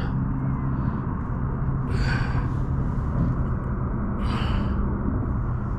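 Electric trolling motor's steady low hum over a rumble, with two short breathy exhales, about two seconds in and again just past four seconds.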